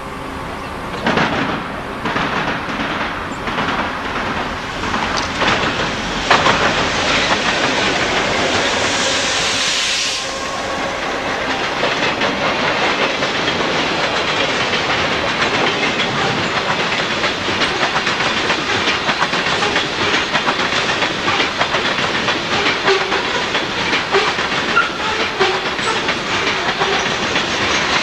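Diesel freight train passing close by: the noise builds as the locomotive approaches and goes by in the first ten seconds or so, then the freight cars roll past with a steady, dense clickety-clack of wheels on the rails.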